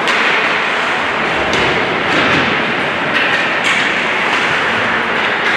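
Ice hockey game in play: a steady wash of skates scraping the ice and spectators' noise, with a few sharp clacks of sticks and puck.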